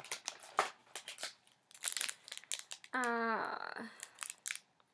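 Snack packaging crinkling and rustling as it is handled, with a short hummed voice sound about three seconds in.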